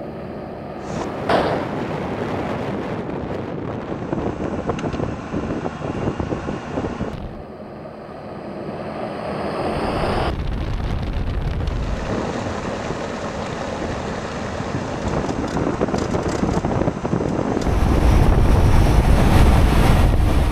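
Ford Bronco driving fast over a dry lakebed, heard as heavy wind buffeting on the microphone over tyre and engine noise, changing abruptly at each cut. The deepest, loudest rumble comes near the end, from close under the vehicle by a front wheel.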